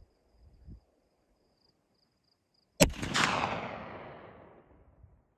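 A single shot from a .50-caliber muzzleloader rifle about three seconds in, its report trailing off over about two seconds. This is the shot that drops a black bear on the bait. Faint insect chirping runs before the shot.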